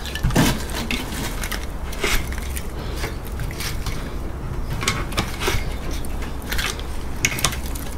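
Scattered metallic clicks and scrapes of pliers working at the steel end plate and copper return bends of an air conditioner's copper-aluminium radiator, over a steady low hum.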